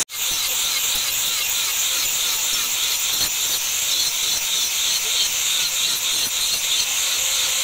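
Angle grinder with an abrasive disc grinding a leaf-spring steel cleaver blade: a steady, hissing grind that starts just after a brief break at the very beginning.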